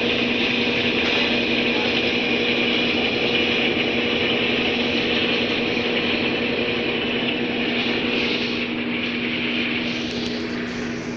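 Whirlpool washing machine running on a universal replacement control board, working normally: a steady hum under a strong, even hiss, a little quieter in the last second.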